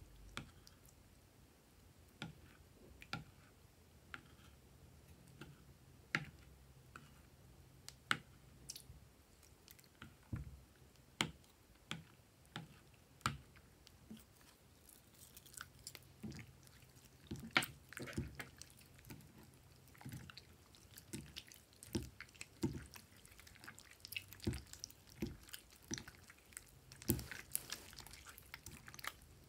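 Clear slime being squeezed and kneaded by hand in a glass bowl, making faint wet clicks and pops. At first they come about one a second, then more thickly from about halfway through.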